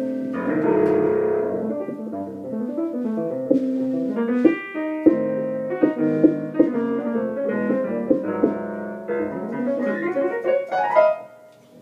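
Electronic keyboard played with a piano sound: chords under a moving melody line, stopping near the end.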